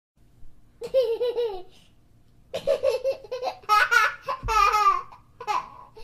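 A child laughing in three bursts of rapid, high-pitched, pulsing laughter: a short one about a second in, a longer run in the middle, and a brief one near the end.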